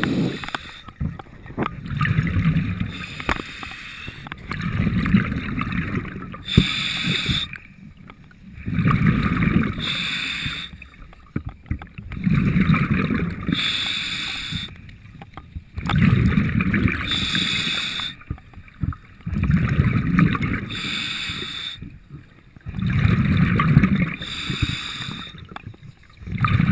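Commercial diver breathing underwater through surface-supplied diving gear's demand regulator: a hissing draw of air and a low bubbling rumble take turns in a steady rhythm, about one breath every three and a half seconds.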